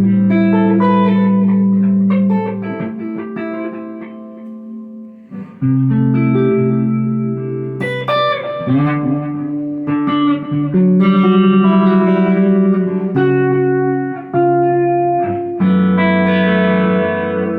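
Electric guitar (a Telecaster on its neck pickup) played clean through a Krinard-modified Bell & Howell Filmosound EL84 valve amplifier, with delay. Chords are struck every few seconds and left to ring and fade, giving a chimey tone.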